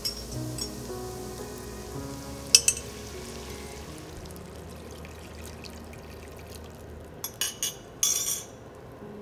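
Oil sizzling in a frying pan with sun-dried tomatoes, then vegetable broth poured in from a glass measuring jug. A sharp clink about two and a half seconds in, and a few more sharp knocks near the end.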